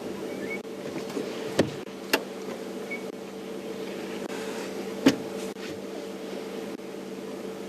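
Steady hum of an idling safari vehicle engine, with three sharp knocks: two close together about a second and a half in, and one about five seconds in.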